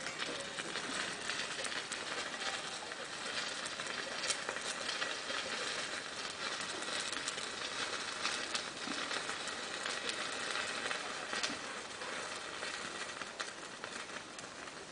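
Labdanum resin sizzling and crackling on a hot charcoal tablet in a censer: a steady hiss with many small pops, easing a little near the end.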